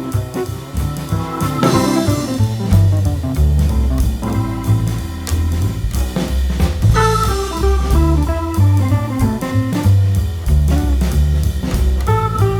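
Background music with guitar, bass and drum kit playing a steady beat.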